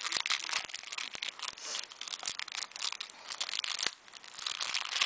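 Plastic wrapping of a trading card pack crinkling and tearing as it is pulled open by hand, a busy irregular crackle that pauses briefly near the end.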